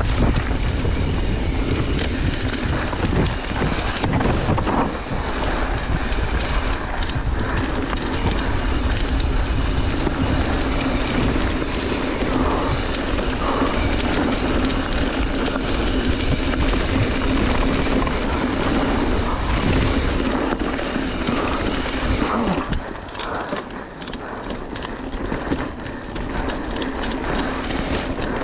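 Mountain bike descending a dirt trail at speed: wind rushing over the camera microphone, with tyre roar on the dirt and the rattle and knocks of the bike over roots and bumps. It gets quieter about 23 seconds in, as the bike slows.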